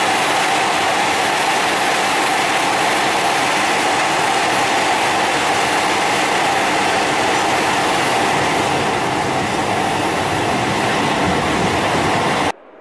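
Italo AGV high-speed electric train running along the platform: a loud, steady rushing noise with a mid-pitched hum. It cuts off abruptly near the end.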